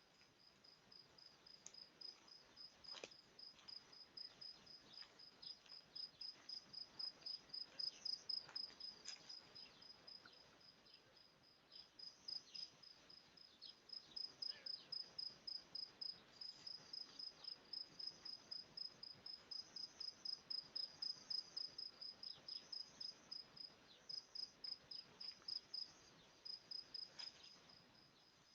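A cricket chirping steadily, about two short high-pitched chirps a second, faint and fading for a few seconds near the middle.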